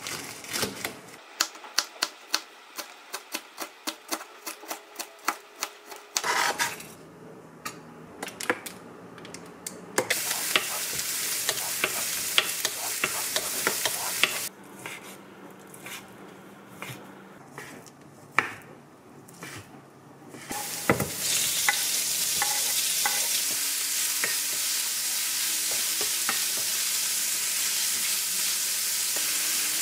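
A kitchen knife cutting a green chili pepper on a cutting board, a regular run of knocks for about the first six seconds. Then chopped chili and garlic sizzle in a frying pan with a wooden spoon stirring. From about two-thirds of the way through, a louder steady sizzle as pieces of meat fry.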